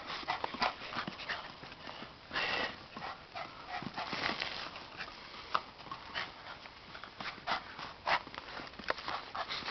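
Two puppies playing and scuffling on paving tiles: short dog sounds mixed with the scrabbling of paws, in quick, irregular clicks and rustles.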